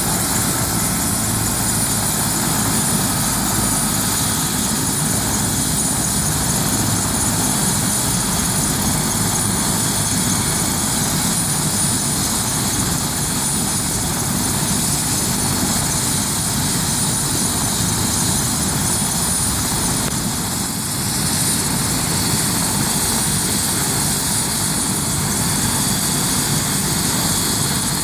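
Bell 407 helicopter's single turboshaft engine running at ground idle with the main rotor turning, kept running while it is refuelled: a steady high turbine whine over the even rush of the rotor.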